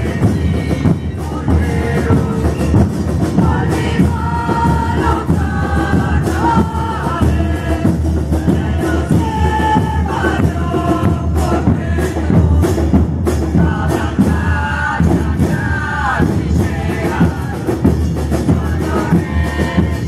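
Murga porteña music: bombos con platillo (bass drums with small cymbals mounted on top) beating a steady rhythm under singing voices.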